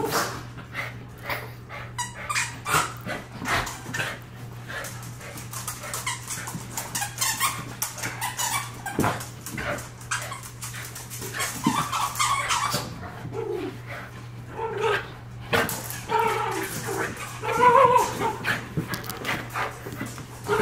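Pet dogs whimpering and barking, with many quick clicks and taps throughout; the whining calls come thicker in the last several seconds.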